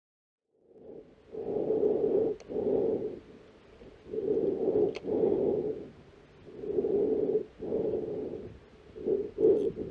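Slow, heavy breathing close to the microphone, a breath about every two and a half seconds, starting from silence just under a second in, with a couple of faint clicks between breaths.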